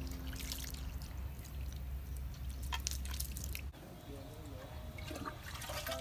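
Water ladled with a coconut-shell dipper and poured, splashing and dripping in short bursts, with soft background music. The sound changes abruptly a little over halfway through.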